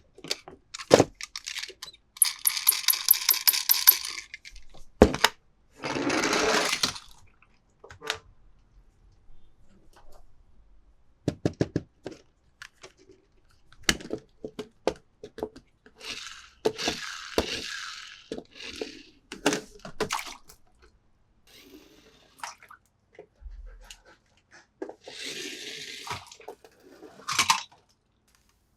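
Toy packaging being opened and handled: bursts of plastic crinkling and rustling, with many sharp clicks and taps of small plastic and die-cast toy cars being handled.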